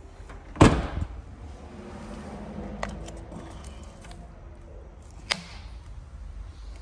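Ford Kuga tailgate shut with one loud slam about half a second in, followed by a short rattle. A few light clicks follow, with one sharper tap about five seconds in.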